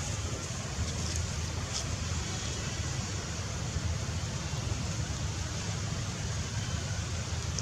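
Steady outdoor background noise with a deep low rumble, with a few faint high clicks in the first two seconds.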